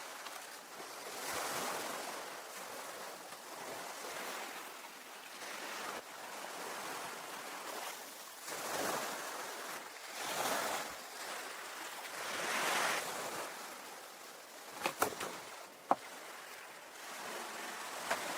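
Ocean waves washing onto the shore, the surf swelling and falling away every couple of seconds. Near the end come a few sharp knocks.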